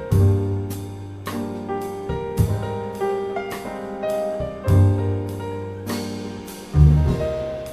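Jazz band playing an instrumental passage, piano to the fore over bass notes, with a cymbal struck about twice a second.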